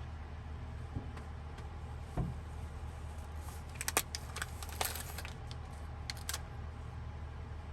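A steady low hum, with a cluster of light metallic clinks and jingles about halfway through.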